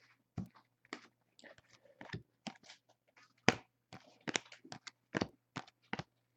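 Trading cards being handled and flipped through by hand: a scattered series of light clicks and scrapes, one sharper click about halfway, over a faint steady electrical hum.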